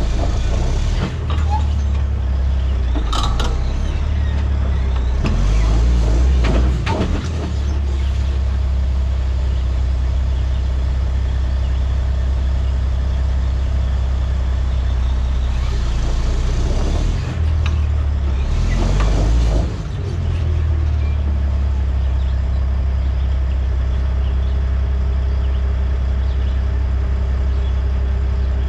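Dump truck's diesel engine idling steadily, with two long spells of air hissing, one a few seconds in and one past the middle.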